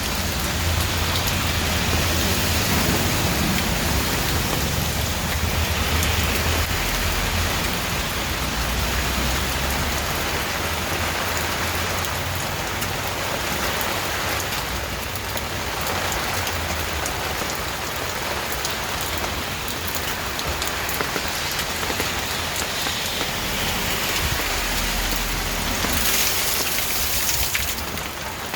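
Steady rain falling, an even hiss of drops striking a surface, with a low rumble underneath at times.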